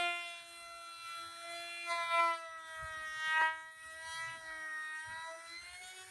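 A small electric motor whining steadily, its pitch drifting slowly down and then back up, with two short clicks partway through.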